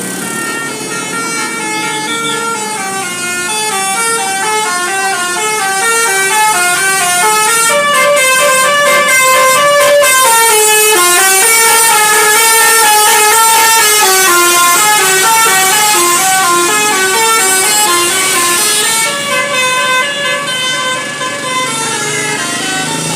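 A bus's 'telolet basuri' musical horn playing a tune: a long run of notes stepping up and down, growing louder over the first several seconds.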